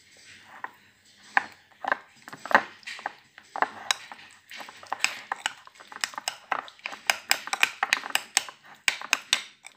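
Metal spoon clinking and scraping against a glass bowl while mashing banana pieces: a few separate clinks at first, then a quick, dense run of them from about halfway through.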